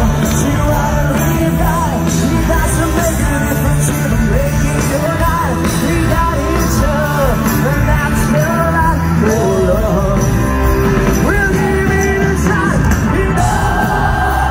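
Live band playing a song with a male lead singer, heard loud from within the audience.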